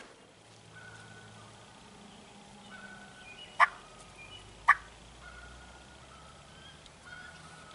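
Turkey calls: two loud, sharp single notes about a second apart, with fainter drawn-out notes before and after them.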